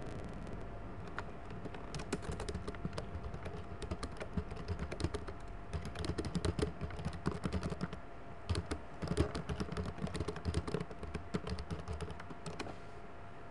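Typing on a computer keyboard: quick runs of key clicks with a short pause a little past the middle, over a faint steady hum. The typing stops about a second before the end.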